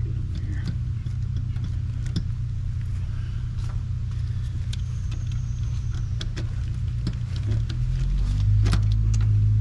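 Small clicks and taps of wires and a screwdriver being worked on the terminals of an AC contactor, over a steady low rumble. About eight seconds in, a deeper, pitched hum swells in and grows louder.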